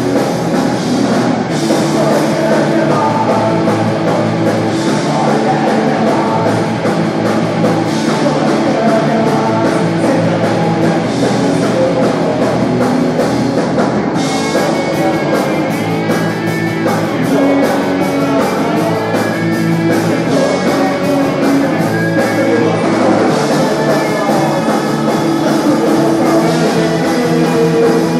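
A rock band playing live: two electric guitars, electric bass and a drum kit, with a lead singer, at a steady loud level throughout.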